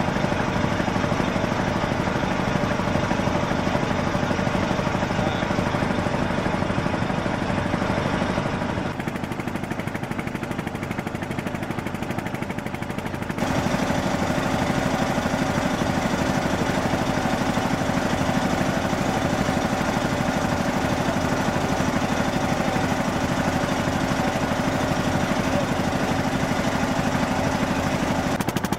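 An engine running steadily with a fast, even rattle of firing strokes; the sound changes abruptly about 9 seconds in and again about 13 seconds in.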